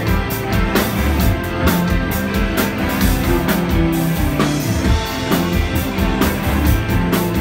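Live rock band playing an instrumental passage, with sustained instrument notes over a steady drum beat.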